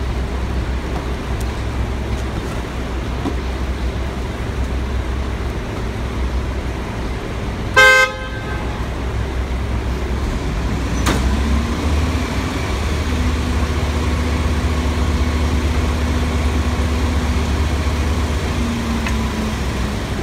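Mack MR garbage truck's diesel engine idling behind a McNeilus rear-loader packer. The engine speeds up with a steady whine from about eleven seconds in as the packer blade cycles to compact a load of cardboard recycling. A car horn honks once, briefly, about eight seconds in.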